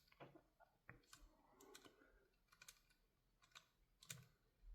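Faint, scattered clicks and taps of airsoft pistol parts being handled during reassembly, about half a dozen small sharp ticks spread irregularly.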